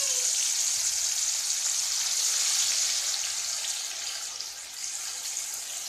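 Spice-battered fish pieces deep-frying in a pan of hot oil: a steady, loud, high hissing sizzle of the bubbling oil, easing a little about four seconds in.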